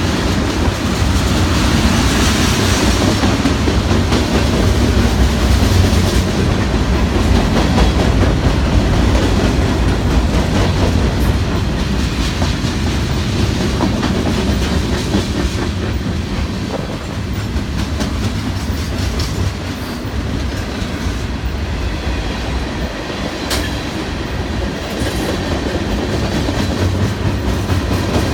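Canadian National freight train rolling past, its car wheels running over the rails with a steady low rumble that eases a little past the middle and builds again near the end.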